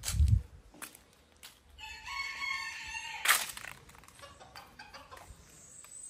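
A rooster crowing once, a single drawn-out call lasting well over a second, starting about two seconds in. There is a dull thump at the start and a sharp rustling burst right after the crow.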